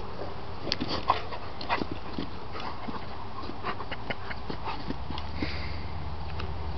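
Rottweiler rolling and rubbing its body on dry grass and dirt after a bath: scattered rustling and scraping with short sharp clicks. A low steady hum comes in about five seconds in.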